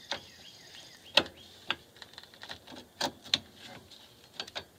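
Drum brake shoes and their hardware being worked onto the backing plate and into the wheel cylinder slots, giving short sharp clicks and knocks, about six in all, the loudest a little over a second in.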